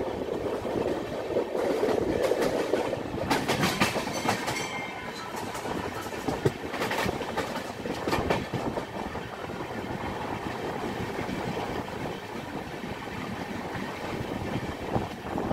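Express train passenger coach running at speed: a steady rushing rumble, with the wheels clacking irregularly over the rail joints.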